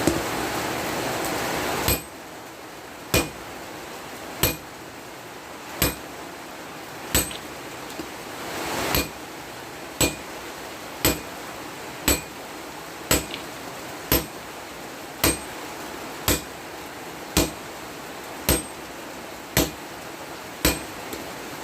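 Hammer blows on a steel tractor chopper blade that is being shaped into a machete, a sharp metallic strike about once a second. A steady rushing hiss runs beneath the first two seconds and cuts off suddenly.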